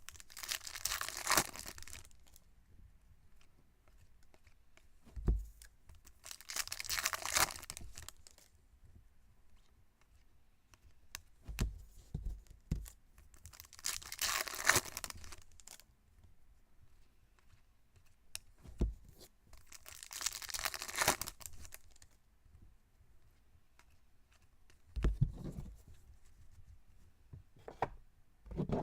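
Foil trading-card pack wrappers being torn open, four loud rips about six to seven seconds apart and a couple of softer ones near the end, with short soft knocks in between.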